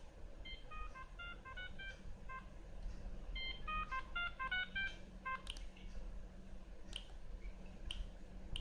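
Siemens M65 mobile phone's loudspeaker playing a built-in tone: a quick run of short beeps at changing pitches, played twice, followed by a few brief high chirps about once a second.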